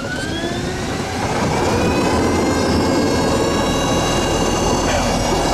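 Motenergy ME-0709 brushed DC electric motor (5 kW) driving a wooden launch, winding up to full power: its whine rises in pitch for about two seconds, then holds steady over the rush of the boat's wake.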